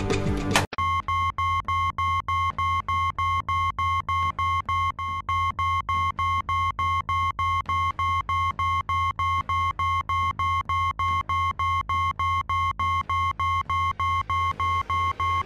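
Electronic synthesizer score: a held high tone over a pulsing low synth beat, about four pulses a second, starting abruptly when the preceding guitar music cuts off.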